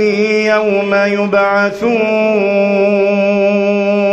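A man's voice chanting Quran recitation in a melodic style: he draws out a word with a few pitch turns, then holds one long steady note through the second half.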